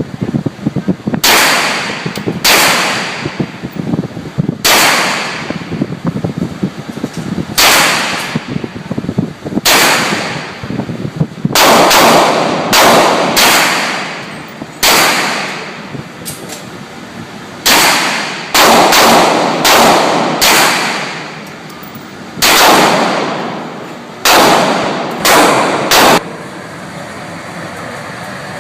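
Gunshots fired one at a time, about twenty over the span, with irregular gaps of half a second to three seconds. Each is a sharp report that trails off over about a second.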